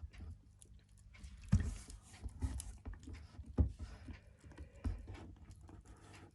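Small kitten eating, with a run of small irregular wet chewing and licking clicks and a few soft thumps.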